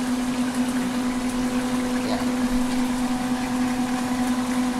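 A steady electrical hum from a running kitchen appliance over a constant hiss, with a second, higher hum joining about three seconds in.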